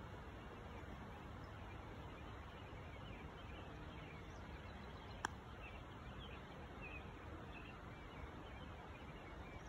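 A single sharp click about five seconds in: a golf putter striking the ball. Around it, a faint outdoor background with a few soft chirps.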